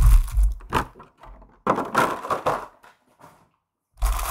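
Packaging being handled in short bouts: crinkling and rustling with small clicks and dull bumps, as doll parts are unwrapped.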